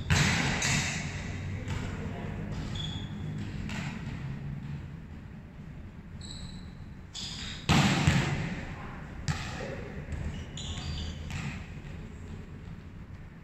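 Volleyballs being hit and bouncing on a hard court floor: irregular sharp slaps and thuds with a short echo, the loudest about eight seconds in, with children's brief shouts between them.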